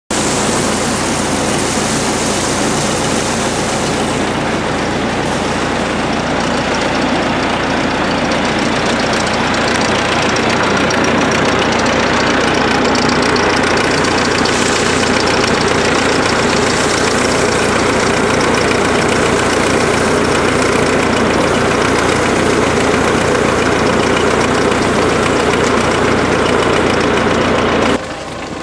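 Tractor engine idling steadily and close by, while the garlic bulbil seeder mounted on it is being filled. The sound drops off abruptly near the end.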